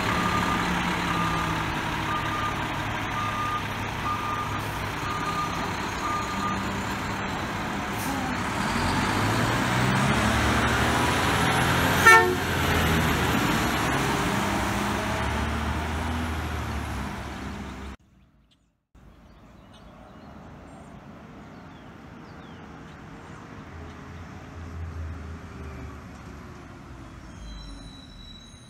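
Mack front-loader garbage truck's reversing alarm beeping steadily over its diesel engine, the beeps stopping after about six seconds as the truck pulls away, with one short horn toot about twelve seconds in. After a sudden cut, a much quieter street with a truck faintly audible in the distance.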